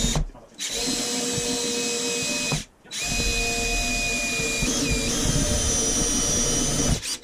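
Compact cordless drill drilling into a 1/8-inch aluminum dashboard panel. It runs in three goes: a brief one, one of about two seconds, then a longer run whose pitch dips and rises again about five seconds in.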